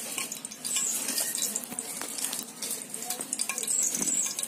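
Hot ghee sizzling and crackling in an aluminium kadai, a dense run of small pops and crackles.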